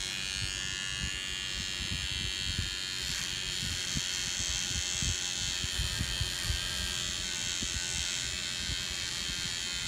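Cordless Slimline hair trimmer buzzing steadily as it cuts a guide line into short hair, switching off at the very end.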